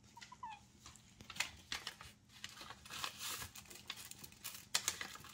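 Kitten licking lickable cat-treat paste off a plate, an irregular run of small wet lapping and smacking clicks.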